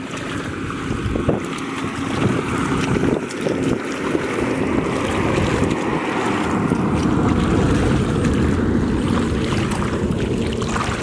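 Wind buffeting the microphone in a steady low rumble, with muddy water sloshing and splashing as hands grope through the shallow flooded mud.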